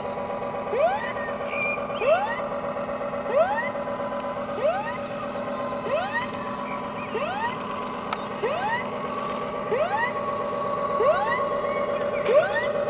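Whooping siren from a radio-controlled model tugboat's sound module: a short rising whoop about every 1.3 seconds, over a steady tone.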